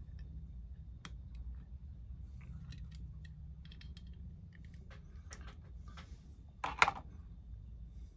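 Small clicks and taps of hands handling a die-cast toy van and a 3D-printed plastic roof ladder, with one louder sharp click about two-thirds of the way in, over a low steady hum.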